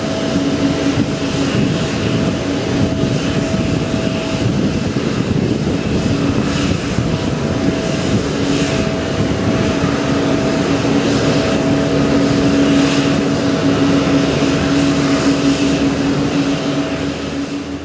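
Steady, loud jet airliner noise across the airport apron: a constant rush with two steady hums running through it, fading out at the very end.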